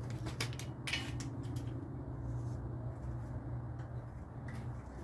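A few light clicks and clinks from metal engine parts being handled, a cluster about half a second to a second and a half in and another near the end, over a steady low hum.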